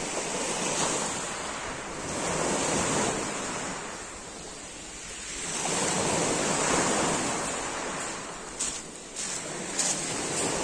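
Small waves breaking and washing up a pebble beach, the surge swelling and falling away twice. Near the end, a few crunching footsteps on the shingle.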